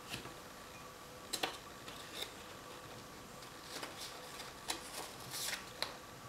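Folded origami paper petals being pressed and handled, giving several short crackles and rustles, the loudest about one and a half seconds in.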